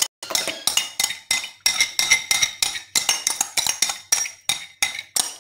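Metal spoon beating yogurt in a plastic bowl: quick clinks and knocks against the bowl, about four a second, with a faint metallic ring.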